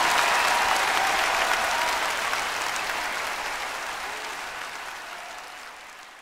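Audience applause, a dense patter of clapping that fades out steadily to nothing.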